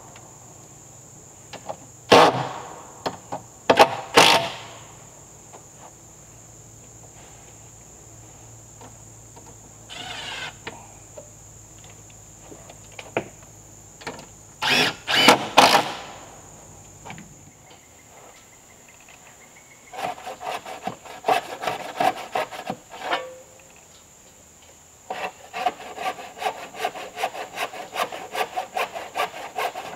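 Cordless drill driving screws into the wooden wall sheathing of a timber-framed outhouse, in several short bursts during the first half. Later, a handsaw cuts a wooden board in quick, even strokes. Insects keep up a steady high buzz throughout.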